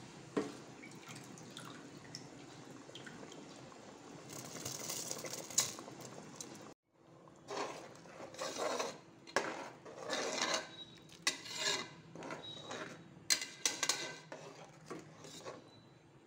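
Rice cooking in a pot of boiling water with a low, even bubbling noise. After a short break about seven seconds in, a perforated metal ladle stirs it, with irregular scrapes and clinks against the pot.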